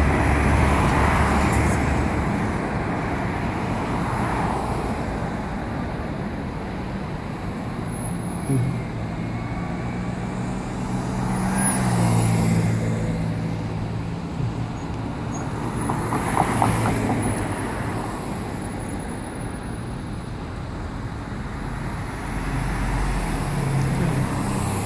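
Road traffic on a wide street: cars pass every few seconds over a steady noise bed. An engine hum rises and falls in pitch through the middle stretch.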